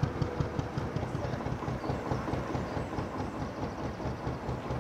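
Narrowboat's traditional Petter McLaren B2 diesel engine chugging steadily while under way, with an even, rapid low beat.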